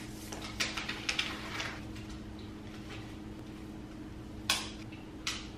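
Laptop box packaging being handled: a run of short paper and cardboard rustles and crinkles about half a second in, then two sharp clicks or taps near the end, over a faint steady hum.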